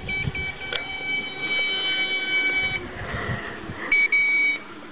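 High-pitched steady electronic beep, held for nearly three seconds with a couple of short breaks at the start, then sounding again briefly near the end.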